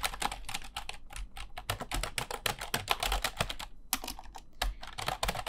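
Fast typing on a computer keyboard: a dense, uneven run of key clicks, with a short pause a little before four seconds in, then more typing.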